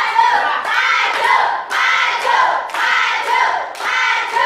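A group of students shouting or chanting together in unison, with sharp claps in time about once a second.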